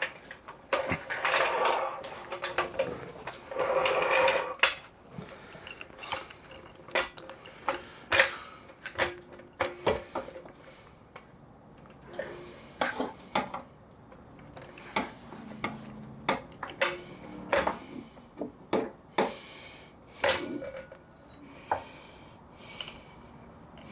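Irregular metal clanks and knocks from tools working a stubborn Jeep XJ door hinge pin that will not go in. Two short, noisier scraping stretches come in the first few seconds.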